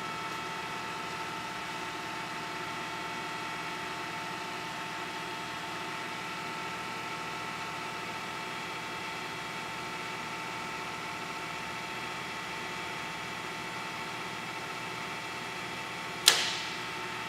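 Oxford 949VS milling machine's 3-horsepower variable-speed head running at a steady speed, a constant whine of several fixed tones. A single sharp metallic clunk sounds near the end.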